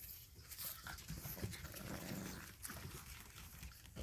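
Shar-Pei puppies play-fighting: a brief, rough puppy growl about two seconds in, amid small scuffling clicks of paws and mouths.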